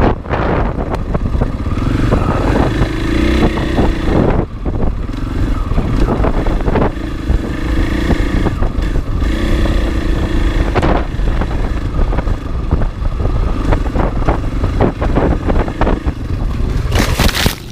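Husqvarna FE 501 single-cylinder four-stroke dirt bike engine running on the trail, its pitch rising and falling with the throttle, over frequent knocks and rattles from riding rough ground. A brief loud rush of noise comes just before the end.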